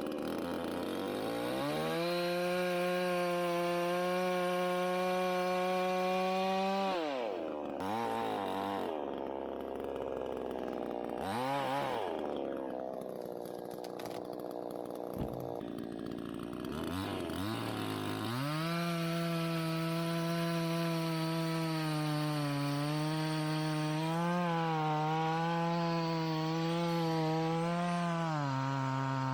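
Chainsaw running at speed. Between about 7 and 18 seconds in it is let off and blipped up and down several times. It then runs again with its pitch wavering as it bites into the wood, and steps down in pitch near the end.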